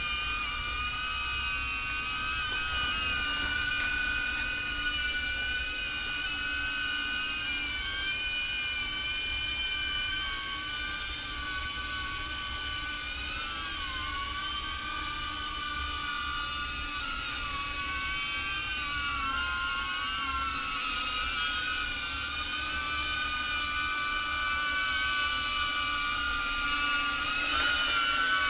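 DJI Avata FPV drone's propellers whining in flight: a steady high-pitched buzz whose pitch wavers up and down as the throttle changes, growing louder near the end.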